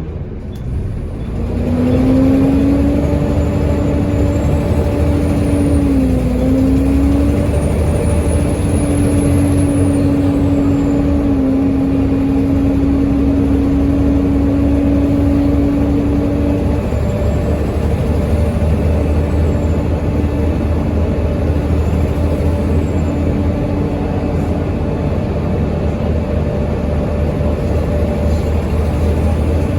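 Volvo B7TL bus's six-cylinder diesel running under way, picking up again about a second in after a brief dip, with a steady droning whine and a high whistle that rises and falls. It is the loud turbo and constant 'hoover' noise of a worn-out bus.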